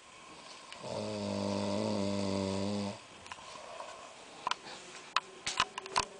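A sleeper snoring: one long, steady, pitched snore of about two seconds, starting about a second in. A few sharp clicks follow near the end.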